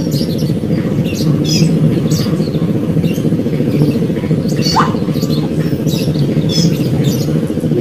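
A steady low hum, like a motor running, with short bird chirps over it now and then.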